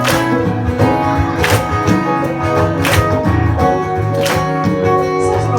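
Live band music in an instrumental passage: guitar over a low, steady bass line, with a sharp accent about every one and a half seconds.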